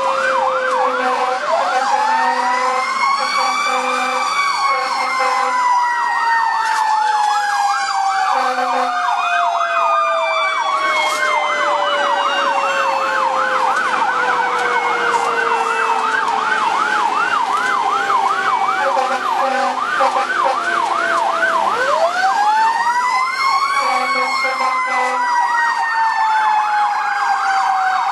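Fire engine's siren on a fast yelp, heard from inside the cab, with a second siren climbing to a wail twice and each time sliding slowly back down. Short horn blasts sound several times over the sirens.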